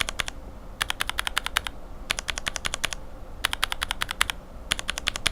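Lubed linear mechanical keyboard switch (Invyr Panda top housing on a Cherry retooled bottom housing, Revo White stem and spring, lubed with Tribosys 3204) pressed rapidly in short runs. About five quick bursts of sharp clacks from the stem bottoming out and topping out.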